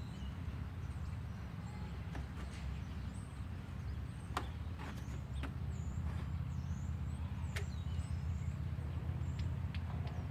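Caulking gun clicking now and then as its trigger is squeezed to push out a bead of caulk, over a steady low rumble, with faint high chirps.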